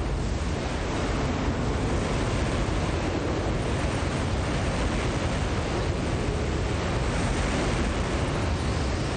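Tornado-force wind: a loud, steady rushing noise with no letup, heaviest in the low end.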